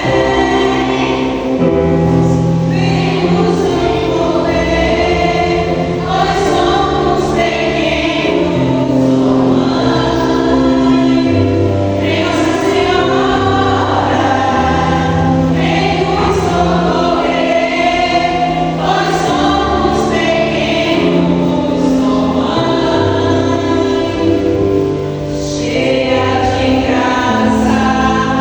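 Choir singing a Catholic Marian hymn over instrumental accompaniment with sustained low bass notes.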